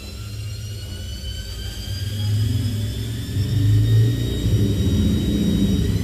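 Electrolux front-loading washing machine ramping up to a high-speed spin: a motor whine rising steadily in pitch over a drum rumble that grows louder. The drive now spins normally again after a burnt part was replaced.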